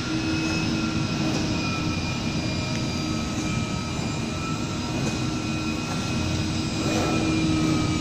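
CNC car-mat cutting machine running while it cuts carpet: a steady machine hum and whine with several held tones, some drifting slightly in pitch, a little louder near the end.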